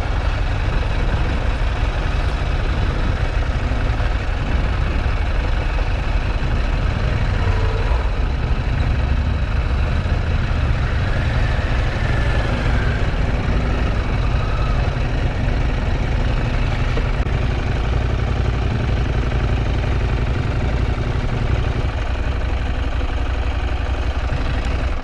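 Motorcycle engine running steadily, a continuous low rumble under a dense, even rushing noise. It cuts off suddenly at the very end.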